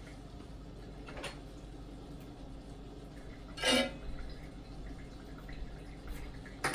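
Kitchenware being handled at a countertop: a short, clear clink or scrape of a utensil against a dish about halfway through, a fainter knock about a second in, and another clatter at the very end, over a faint steady background.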